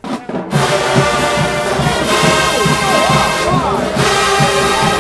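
Marching band horns and drums striking up loudly about half a second in, the brass playing over a steady drum beat, with sliding trombone-like lines.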